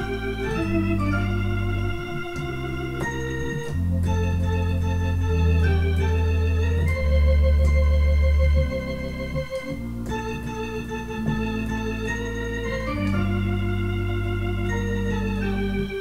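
Two-manual electronic home organ being played: a slow melody with vibrato over sustained chords and held bass notes that change every second or two.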